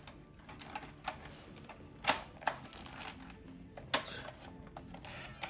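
Hard plastic parts of a toy foam-dart blaster clicking and knocking as attachments are fitted and the blaster is handled: scattered sharp clicks, the loudest about two seconds in.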